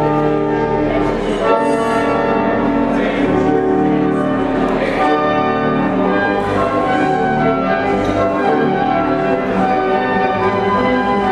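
Church pipe organ playing sustained full chords, the notes changing every second or so.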